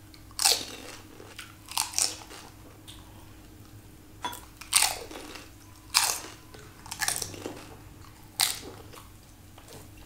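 A person eating close to the microphone: a crisp pani puri shell bitten and crunched open, then more sharp crunching bites every second or two with chewing between.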